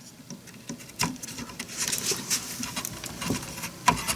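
Light clicking and scraping of a DDR4 RAM stick against the motherboard's plastic memory slot as it is handled and lined up, with a sharper knock about a second in and another near the end.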